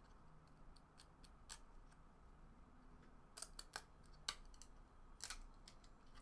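Faint, sharp clicks and snaps of cardboard trading cards being handled and peeled apart, a few of them in quick succession about halfway through.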